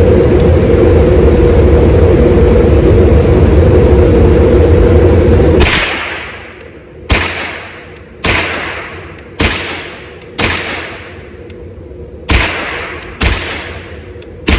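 A loud steady rumbling noise that cuts off about six seconds in, followed by eight rifle shots from an AR-15, each ringing out with an echoing tail, fired roughly a second apart with a short pause near the middle.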